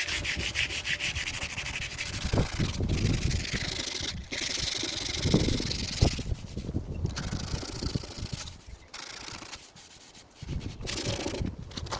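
Sandpaper, 180 grit, being rubbed by hand over the painted steel of a lawn mower deck in quick back-and-forth strokes, with short pauses between passes. Wind buffets the microphone with a low rumble.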